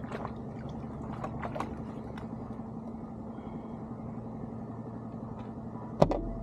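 A steady low hum with light clicks and taps from fishing gear being handled in a kayak, and one sharp knock about six seconds in.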